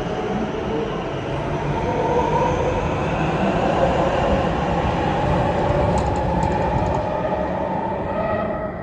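Melbourne Metro electric train running through an underground station: a steady rumble with a faint motor whine, swelling slightly through the middle and dropping off sharply near the end.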